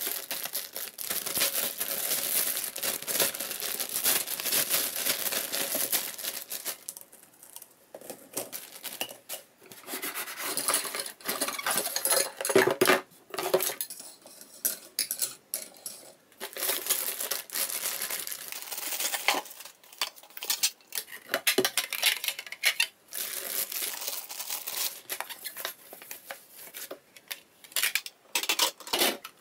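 Plastic packaging bags crinkling and rustling as toy parts are unwrapped, followed by hard plastic pieces clicking and clattering as they are set down one by one on a wooden floor.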